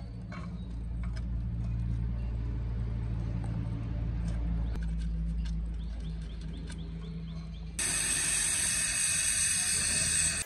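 A steady low hum with faint ticks. About eight seconds in, a gas welding torch flame starts hissing loudly and evenly as it welds a crack in a motorcycle exhaust muffler.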